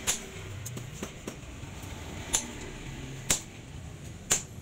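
Hammer blows striking a tong-held chisel set on red-hot leaf-spring steel. There are four sharp metallic strikes, roughly a second apart, each with a brief ring.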